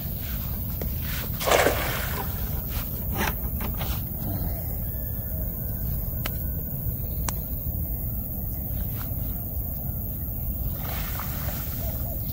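Cast net thrown into the river, landing with a splash about a second and a half in, over a steady low rumble of wind on the microphone. Near the end, water pours off the net as it is hauled out.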